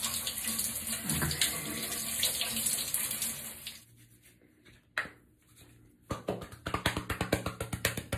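Shower water spraying steadily, stopping a little under four seconds in. After a quiet stretch with one sharp click, a fast series of short strokes begins near the end.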